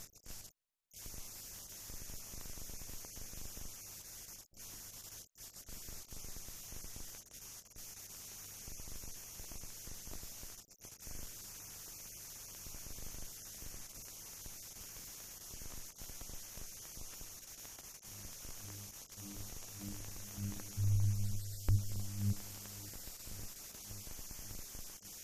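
Steady electrical mains hum with background hiss and no other sound, cutting out briefly a few times and swelling louder for a couple of seconds near the end.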